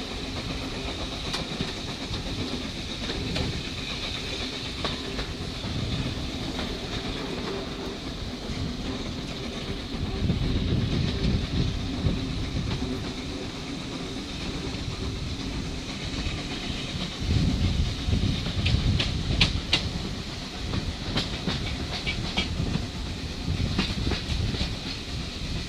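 Heritage railway passenger coaches running along the track, heard from an open carriage window: a steady rumble and hiss of wheels on rail that swells louder about ten seconds in and again past halfway, with a run of sharp clicks from the wheels near the end.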